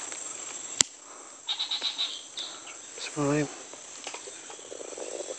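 Steady high-pitched drone of forest insects, with a single sharp click about a second in and a brief voice-like sound just past the middle.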